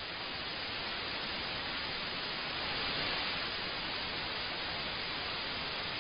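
Steady hiss of television static.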